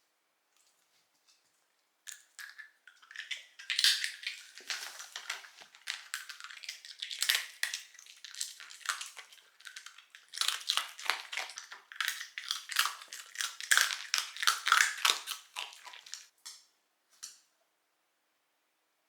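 A small Shiba Inu crunching and chewing a hard treat: rapid irregular crunches.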